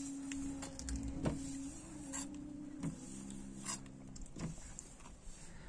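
A metal spatula scraping and tapping on flatbread on a sadj, a domed iron griddle, in a few sharp clicks. Under it runs a steady low mechanical hum that stops about four seconds in.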